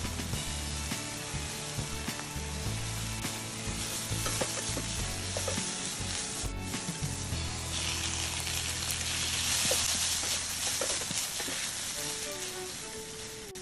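Sliced sausage, onion, green pepper and mushrooms sizzling in oil in a frying pan, stirred and tossed with metal tongs that click now and then against the pan. The sizzle grows louder a little past halfway and eases off near the end.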